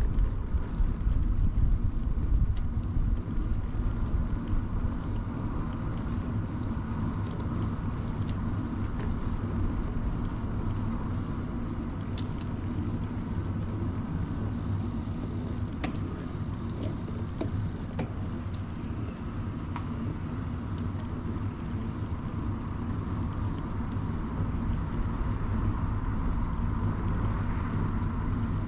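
Early-1970s Peugeot UJ-10 ten-speed bicycle rolling along, heard from a camera clamped to the bike: a steady low rumble of wind on the microphone and tyres on pavement, with a few faint clicks.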